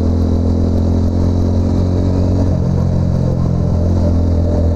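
TVS Apache RTR 200's single-cylinder engine running steadily under way, its note shifting to a new pitch about halfway through and again near the end.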